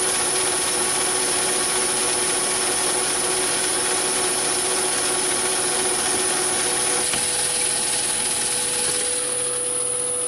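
Myford ML7 lathe running with the power feed engaged, its motor and gear train giving a steady hum and whirr as the carriage is driven slowly through the 12/25T fine-feed tumbler gear, which halves the feed rate. About seven seconds in one of the hum tones drops out, and a couple of seconds later the higher hiss eases off.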